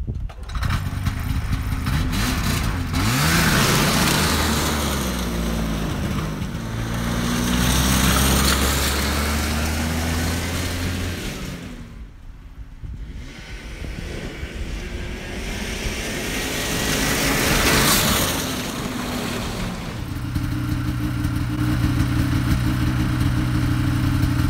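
Two-cylinder 500cc Rotax two-stroke engine of a 1979 Ski-Doo Everest 500 snowmobile revving up and down as the sled is ridden off and back, growing louder and fainter as it goes. For the last few seconds it settles into a steady idle.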